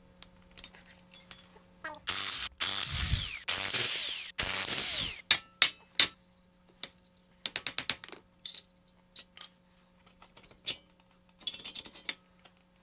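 Metal parts of a Dana 60 front hub being worked by hand. A few seconds of loud metallic scraping are followed by scattered clicks and clinks, with a quick rattle of rapid clicks midway through.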